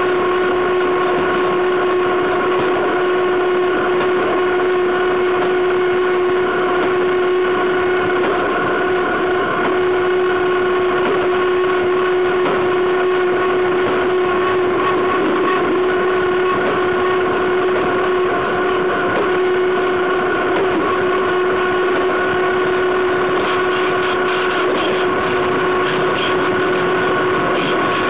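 Freight wagon wheels rolling on the rail close up at speed: a loud, steady rolling noise with a constant ringing tone running through it and a few light clicks near the end.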